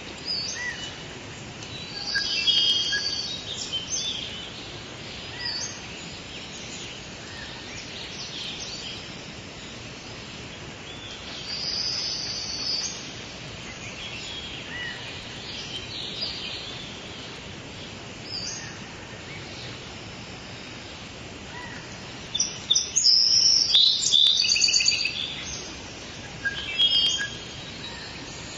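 Forest ambience: several birds calling and singing in short chirps and phrases over a steady background hiss, with the busiest, loudest bursts of song about two seconds in, around twelve seconds, and for several seconds near the end.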